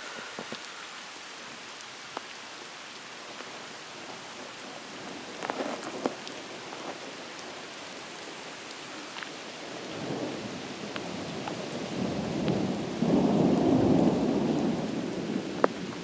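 Steady heavy rain with scattered sharp raindrop ticks close by. Thunder rolls in about two-thirds of the way through, swells to a loud rumble near the end, then starts to fade.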